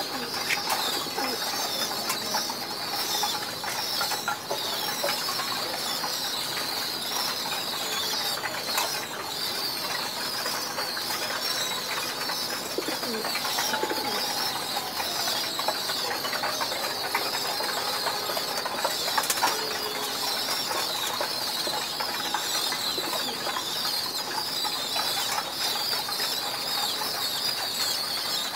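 Caged pigeons feeding, with scattered sharp pecking clicks on metal feed trays and occasional wing flutters, over a constant high twittering of many birds.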